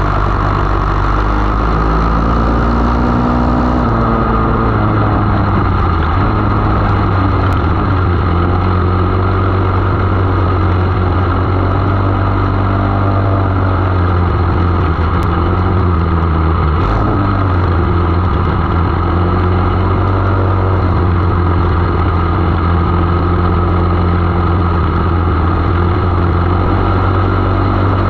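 500cc mini sprint engine running hard at racing speed, heard from onboard the car, its pitch rising and falling gently as the throttle comes on and off through the turns.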